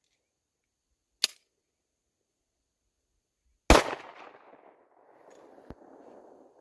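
Beretta 92FS 9mm pistol firing: a sharp, quieter crack a little over a second in, then a much louder shot near the middle whose echo trails off over the next few seconds.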